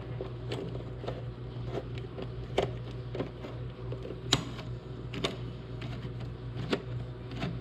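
A handful of irregular sharp clicks and light metallic ticks as a 5/16-inch socket bit on a screwdriver turns the screw of the intake tube's hose clamp, over a steady low hum.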